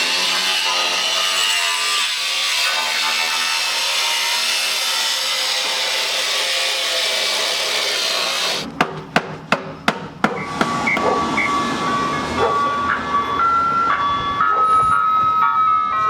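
A rasping sawing or rubbing noise for about eight and a half seconds, which cuts off suddenly. Then come several sharp clicks and a simple electronic melody of single held notes, like an ice cream truck jingle.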